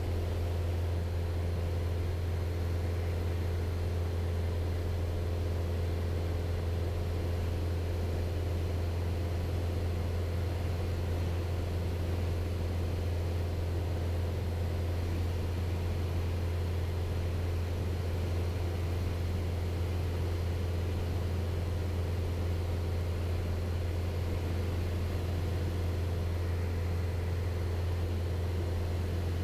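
Piper PA-28 Archer 180's four-cylinder Lycoming engine and propeller droning steadily in cruise flight: an even, low hum that does not change.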